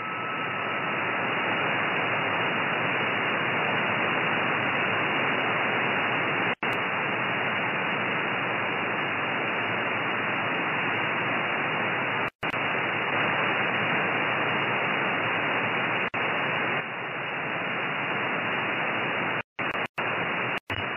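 Steady receiver hiss from an RTL SDR dongle and MMDS down-converter in upper-sideband mode on the 13 cm band, with no station on frequency. The hiss swells slightly in the first second and cuts out briefly several times, three times in quick succession near the end.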